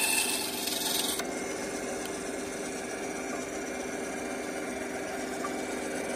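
Ryobi TBS-80 benchtop band saw finishing a cut through a wooden block, the rasping cutting noise stopping suddenly about a second in. The saw then runs on with no load, a steady motor and blade hum.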